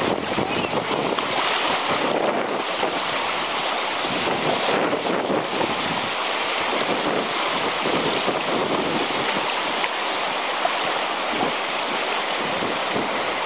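Fast, shallow river water rushing and splashing steadily over stones.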